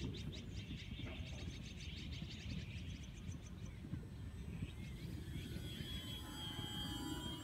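The thin whine of an RC plane's brushless electric motor and propeller comes in about five seconds in and rises in pitch near the end. Before that, a bird gives a rapid ticking trill of about five ticks a second, over a steady low rumble of background noise.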